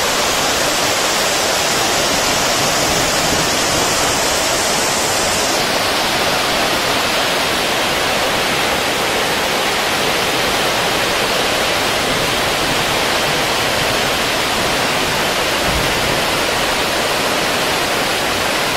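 Flash floodwater rushing over fields, a loud, steady wash of noise. A higher hiss lies on top for the first five seconds or so and then stops.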